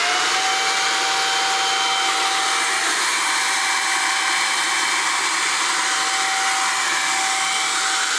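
Toro electric leaf blower running flat out, a steady whine over rushing air as it blows into a homemade hovercraft's skirt.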